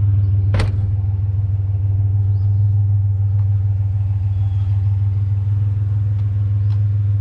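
Pickup truck running with a steady low drone, with one sharp click about half a second in.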